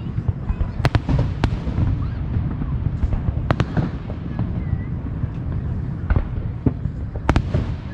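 Fireworks going off: a handful of sharp bangs, about a second in, around three and a half seconds and again near the end, over a steady low rumble of more distant firework booms.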